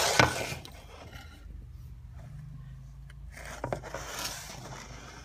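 A scrape against the floor under low furniture at the start, then a husky sniffing and snuffling with its nose pushed into the gap under the furniture, about three to four seconds in.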